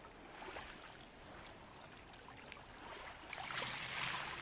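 Faint water sound with small scattered clicks, swelling into a louder bubbling hiss about three seconds in.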